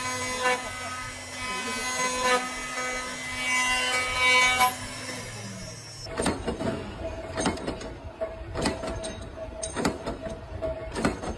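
An automatic wood-turning machine's spinning cutter head whining steadily, pulsing about once a second, as it shapes a wooden piece. About six seconds in it gives way to a metal punch press knocking sharply again and again as it punches holes in a steel disc, over a steady machine hum.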